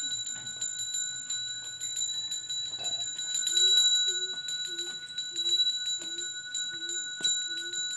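A Balinese priest's hand bell (genta) rung continuously for temple prayers: a steady high ringing driven by rapid clapper strikes. From about halfway, a short low note repeats beneath it about every two-thirds of a second.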